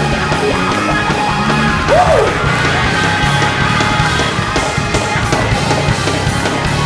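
Loud live band music with drums and voices, one voice sliding up and down in pitch about two seconds in.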